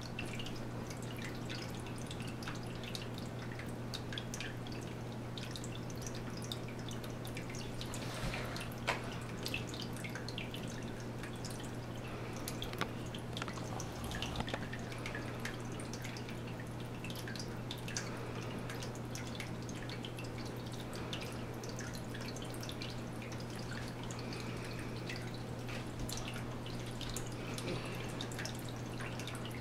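Water dripping in irregular small ticks over a steady low hum.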